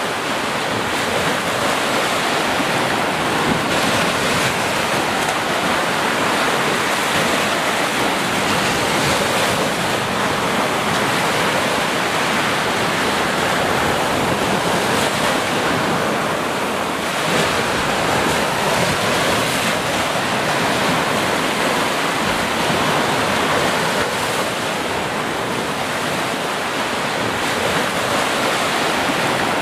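Small ocean waves breaking on a sandy beach and washing up the shore, a continuous rush of surf that swells and eases a little without stopping.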